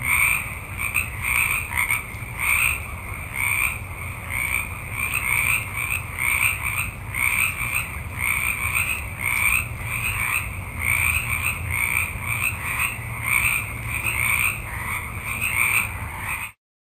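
A dense chorus of many frogs croaking, overlapping calls pulsing roughly twice a second, over a steady high-pitched background tone. It cuts off suddenly near the end.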